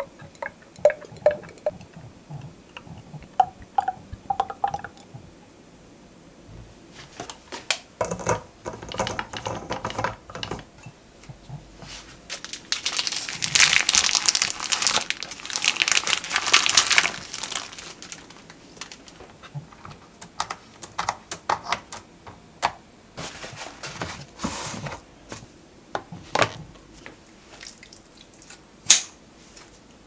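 Sesame oil glugging and trickling from a bottle into a glass bottle, with short pitched gurgles over the first few seconds. After that, wrapping crinkles and rustles loudly for about ten seconds. Scattered light clicks and taps follow, with one sharp click near the end.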